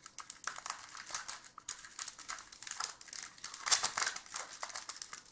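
Foil wrapper of a Pokémon card booster pack crinkling and crackling irregularly as it is handled and opened.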